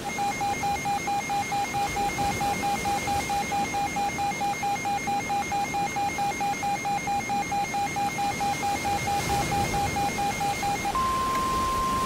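Electronic alert tones of a mock weather-radio special bulletin: one pitch beeping rapidly and evenly, about four to five beeps a second, then near the end a steady, slightly higher tone, over a constant hiss.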